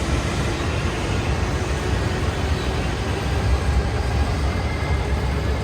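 E5 series Shinkansen running: a steady rumble of rail and motor noise, strongest in the low end, with a faint constant hum over it.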